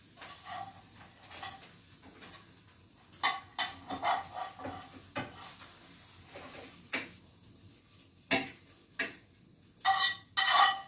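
A spatula scraping and tapping in a frying pan as an omelet is worked loose and slid onto a plate. Scattered soft scrapes are broken by a few sharper knocks of the spatula on the pan, and the last few, near the end, ring briefly.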